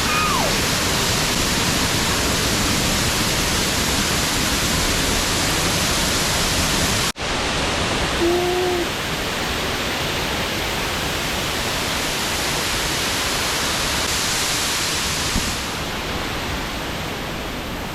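Waterfall pouring, a steady rush of falling water that cuts out for an instant about seven seconds in.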